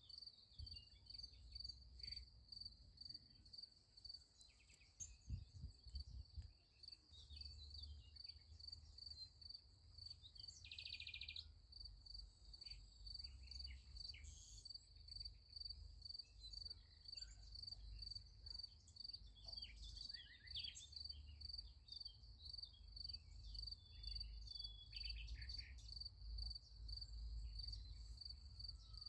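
Crickets chirping in a steady, even pulse, faint throughout, with scattered short bird calls and a brief trill about eleven seconds in, over a low rumble.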